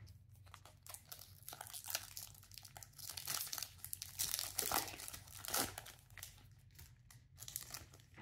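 A 2023 Topps Chrome Platinum baseball card pack's wrapper being torn open and crinkled by hand. It makes a crackling rustle that is loudest in the middle few seconds and then thins out.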